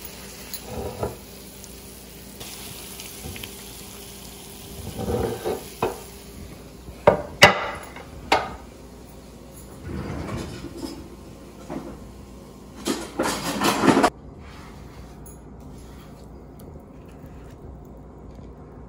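Kitchen dishes and utensils clinking and knocking in short, scattered clatters, with three sharp knocks around the middle and a denser clatter a little later.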